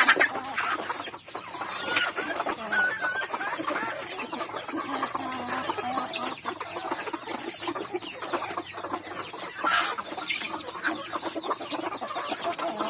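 A large flock of chickens, hens and roosters, clucking continuously as they feed, many short calls overlapping at once.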